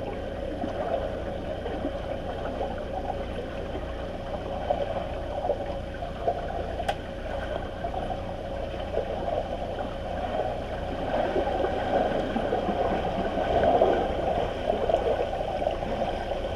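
Swimmers splashing and kicking in a pool, heard from underwater: a muffled, steady churning and bubbling, growing louder in the second half.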